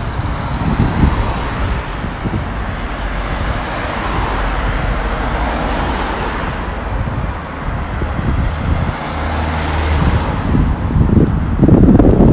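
Cars passing on a road, their tyre and engine noise swelling and fading twice. Wind buffets the microphone with a low rumble near the start and near the end.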